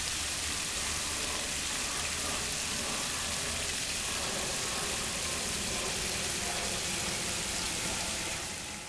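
Water splashing steadily down a multi-tier cascading pondless waterfall, fading out near the end.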